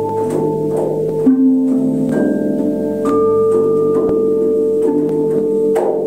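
Tuned metal healing bells and singing bowls struck in turn, their long ringing tones overlapping into a steady chord, with a fresh strike every second or so adding a new pitch.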